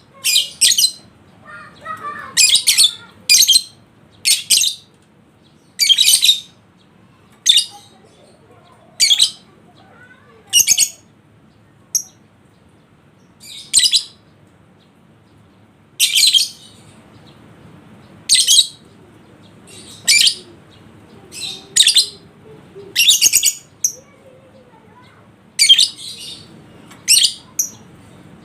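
Lovebird calling in short, shrill chirps, a burst every second or two. This is a lure recording meant to set other lovebirds calling and singing.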